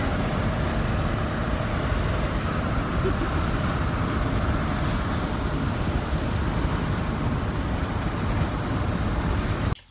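Steady road noise inside the cab of a truck moving at speed.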